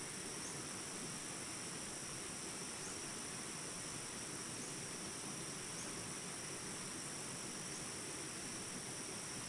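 Small jungle rapids rushing steadily, under a continuous high-pitched drone of insects with faint short chirps every second or two.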